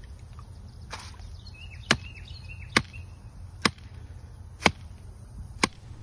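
Sledgehammer striking the cap on a T fitting atop a half-inch threaded pipe, five sharp blows about a second apart, tapping the pipe under a driveway while hose water jets through it to bore the hole.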